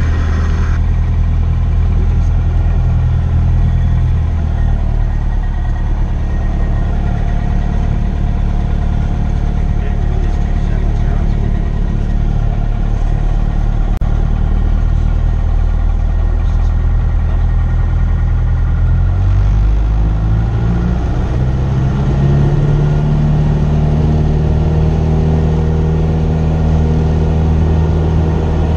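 Cessna 172S's 180-horsepower four-cylinder Lycoming engine and propeller running steadily at power for takeoff, heard inside the cabin. About twenty seconds in, the engine note shifts and rises in pitch and holds there.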